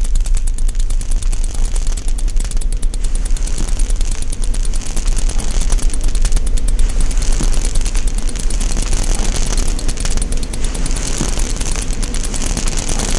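Loud sound-design noise: a rapid, dense crackling clatter over a heavy low rumble.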